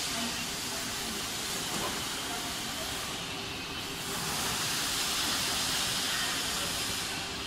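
Steady factory-floor noise of an automated car-body welding line: a constant hiss like escaping compressed air over a faint machinery hum. The hiss dips briefly about three seconds in and then comes back a little louder.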